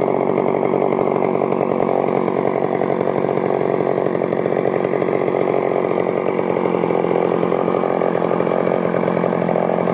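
Homelite 550 84cc two-stroke chainsaw engine running steadily at a constant speed.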